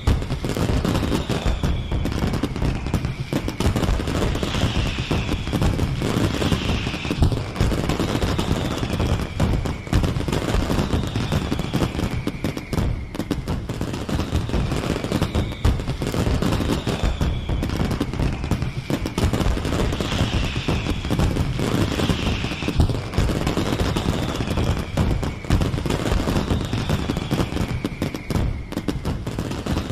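Fireworks going off in a dense, continuous crackle of rapid bangs, with high whistles falling in pitch about every couple of seconds.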